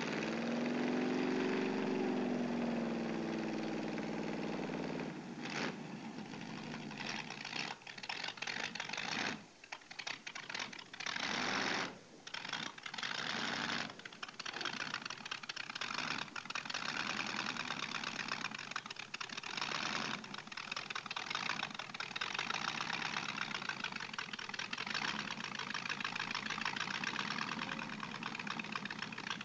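Front-engine slingshot dragster's engine revving up and falling back over the first few seconds, then running rough with rapid popping as the car rolls along, with two brief dips in level near the middle.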